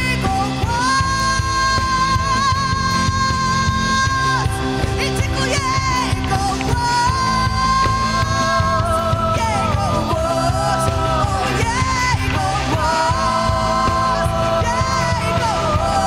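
Live worship band playing, with two women's voices singing a Polish worship song over stage keyboard, electric bass and drums. One long note is held from about a second in.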